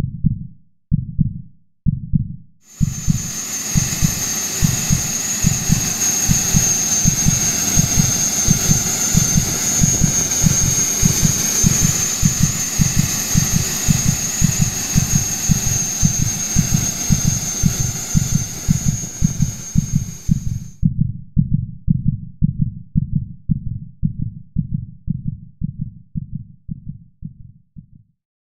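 Heartbeat sound effect thumping, slow at first, quickening to about four beats a second, then slowing and fading toward the end. Over its middle part lies a loud steady rushing hiss with a high whine, which starts about three seconds in and cuts off suddenly about twenty seconds later.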